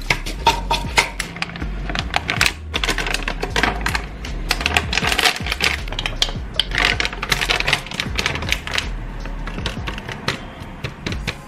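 Hazelnuts and other ingredients dropped and shaken into a plastic hand-blender chopper bowl: a rapid, uneven run of small clicks and clatters. Background music with a steady bass runs underneath.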